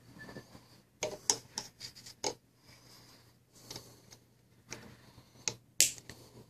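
Sharp clicks and snaps of small hand tools working the throttle pull wire on a model airplane's throttle linkage: a quick run of clicks early on and two more near the end, the last a loud crisp snap.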